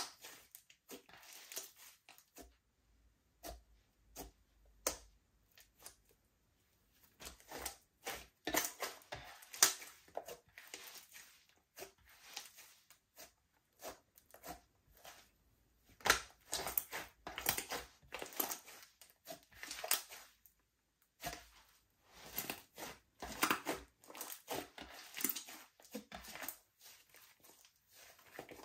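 Slime being kneaded and mixed by hand, with irregular bursts of sticky crackling and popping and short pauses between them.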